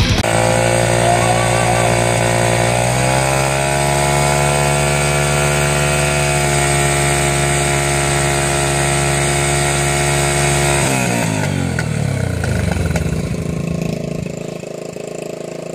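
Small dirt bike engine running, revved up about three seconds in and held at steady high revs for several seconds. Near the end the revs fall away and it drops back to a lower, quieter idle.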